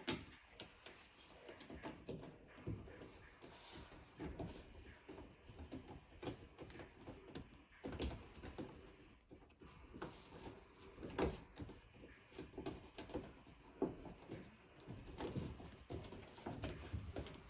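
Quiet, scattered knocks, clicks and rubbing: hands working on a washing machine's rubber door seal.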